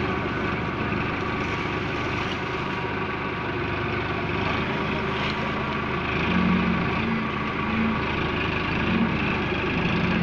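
Tractor diesel engine running steadily while it powers the hydraulic grab crane mounted on it, which is lifting sugarcane; a stronger tone comes in a few times in the second half.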